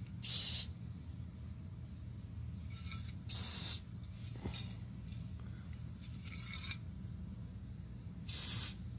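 Aerosol can of chain wax sprayed through its straw in three short spurts of hiss, each about half a second long.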